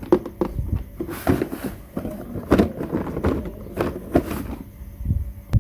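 Small plastic toy kitchen pieces clicking and knocking as they are handled, with short rustles in between.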